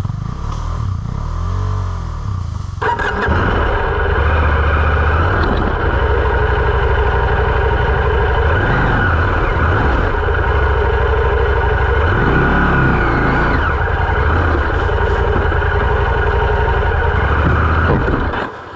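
Moto Morini X-Cape 650's parallel-twin engine at low revs with a few blips, then pulling away about three seconds in and running steadily under throttle, with brief rises and dips in revs, easing off near the end.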